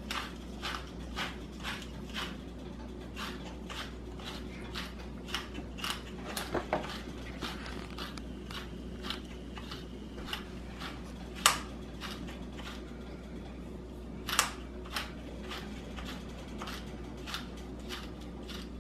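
Pepper mill grinding peppercorns, twisted by hand in short strokes: a faint crunching click about twice a second, with a couple of louder clicks near the middle.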